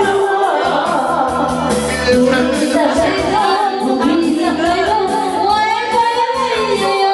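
A woman singing karaoke into a handheld microphone, her voice amplified over a karaoke backing track.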